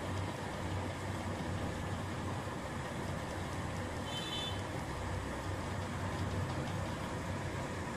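Steady low hum and hiss of background noise, with a brief high-pitched beep about four seconds in.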